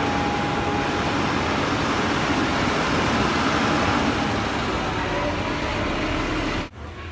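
Tipper truck's engine running close by: a loud, steady noise that cuts off abruptly near the end.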